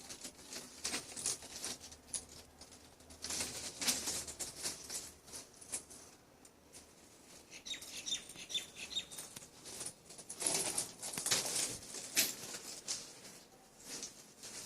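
Hands working CPVC plastic pipe and fittings: scattered clicks and taps with rustling scrapes, busiest in two spells, with a quick run of light high ticks in between.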